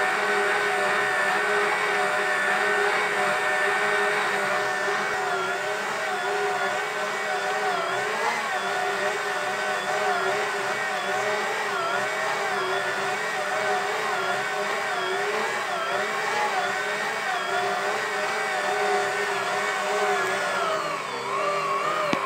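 Karaca Mastermaid Chef Pro 1750 W stand mixer running, its dough hook kneading mantı dough in the steel bowl. The motor's steady whine starts to waver up and down in pitch about five seconds in.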